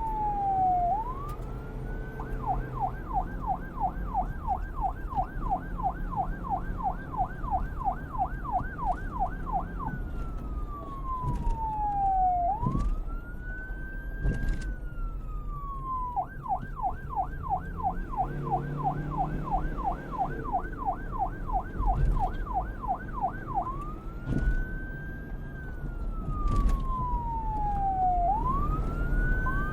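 Electronic police car siren switching back and forth between a slow rising-and-falling wail and a fast yelp of about four sweeps a second, over a low rumble.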